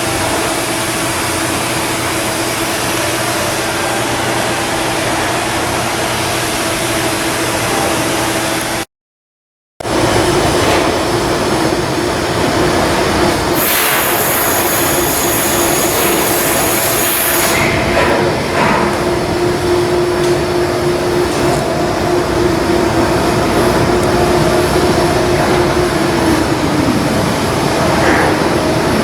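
Steady, loud shipyard machinery noise with a constant hum, broken by a sudden second of silence about nine seconds in. A high hiss joins for several seconds midway, and near the end the hum drops away in pitch.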